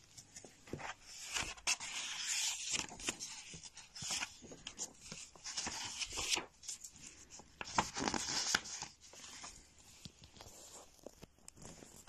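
Paper rustling and scraping as the pages of a storybook are handled and turned, in irregular bursts with small clicks, loudest twice: about two seconds in and again about eight seconds in.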